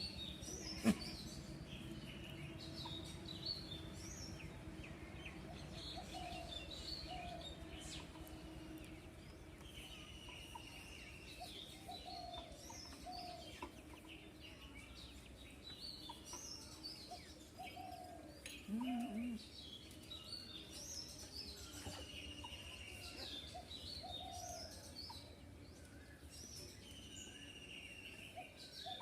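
Birds singing and chirping over and over: falling whistled notes and short chirps, with a lower repeated call underneath. About two-thirds through there is a short, low double call, the loudest sound here.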